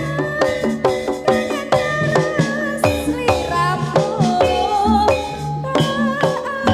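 Jaranan gamelan music: quick, evenly paced strikes on ringing metal keys and gong-chimes over a steady, repeating drum beat, with a wavering melodic line in the middle.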